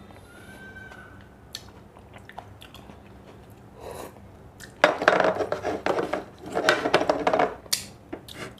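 Close-miked eating: quiet chewing with small clicks, then about five seconds in a run of loud crackly crunching lasting two to three seconds.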